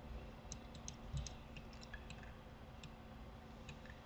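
Faint, irregular clicks of a computer mouse and keyboard over a faint steady hum.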